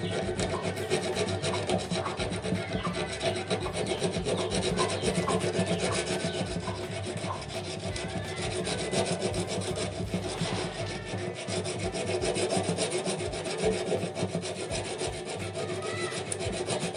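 Sandpaper rubbed by hand over a soldered patch on a Honda Tiger motorcycle's steel fuel tank, in rapid, continuous back-and-forth strokes. This is the sanding that smooths the solder repair flush with the tank.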